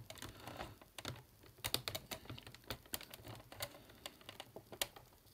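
Hard plastic toy parts handled and pressed together by hand: scattered light clicks and taps as a brittle plastic piece is worked into its latching slot.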